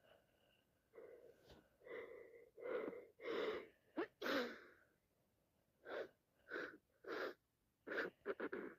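A person sneezing from allergies: a few gasping, building breaths lead to a sharp sneeze about four seconds in, followed by a quick run of shorter sneezes near the end.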